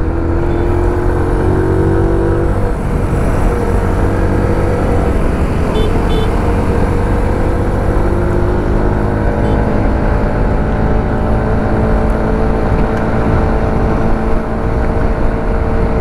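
TVS XL100 moped's small single-cylinder four-stroke engine running steadily while riding along a highway, heard from the rider's position over wind and road noise.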